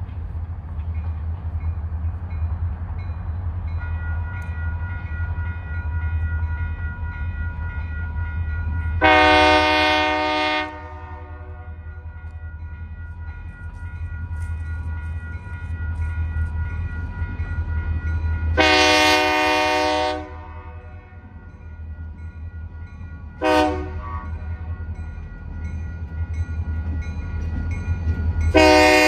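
Union Pacific diesel locomotive's air horn sounding the grade-crossing signal: two long blasts, a short one, and a long one starting near the end, over the low rumble of the approaching train. The crossing bell rings steadily underneath.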